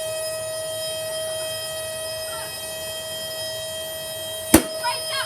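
Motor of a Shark Rotator upright vacuum cleaner running with a steady high-pitched whine while it is being run to burn it out. One sharp bang cuts in about four and a half seconds in.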